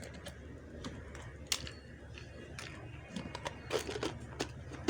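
Small plastic toys and packaging being handled: scattered light clicks and crinkling, with one sharper click about one and a half seconds in.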